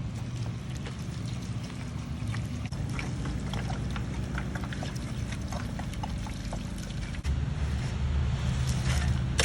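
Wet concrete being poured and worked into a trench, with scattered small scrapes and slaps over a steady low hum that gets louder about seven seconds in.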